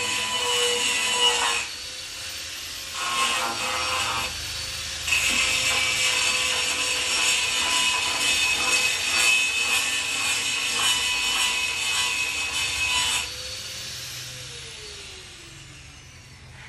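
A power tool's motor running with loud cutting noise in three spells separated by short pauses. About thirteen seconds in, the cutting stops and the motor winds down in a falling whine.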